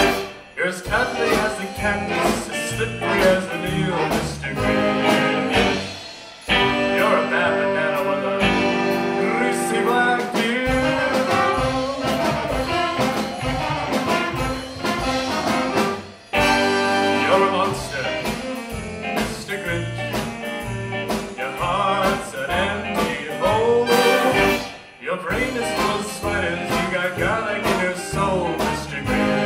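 Live rockabilly band playing: electric guitars, upright bass, drums and a horn section of trumpet, trombone and saxophone. The band drops out for a moment four times, then comes back in.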